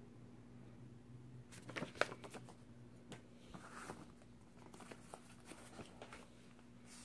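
Faint handling noise of a cardboard gift box and paper insert card: a quick cluster of light clicks and taps about two seconds in, the loudest part, then soft rustling and scattered taps as the packaging is moved.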